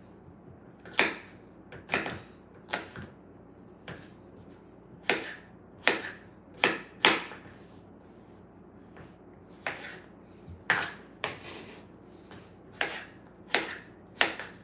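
Kitchen knife dicing potatoes on a cutting board: about twenty short, sharp knocks of the blade hitting the board at an uneven pace, with a pause of a couple of seconds midway.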